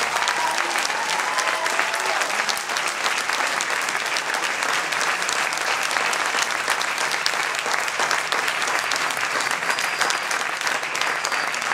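Audience applauding, a dense steady clapping that fills the hall; a few voices cheer in the first couple of seconds.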